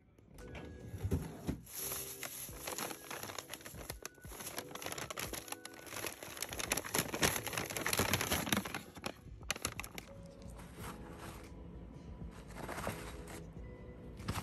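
Clear plastic bag crinkling as it is handled and opened, busiest in the middle, with soft background music underneath.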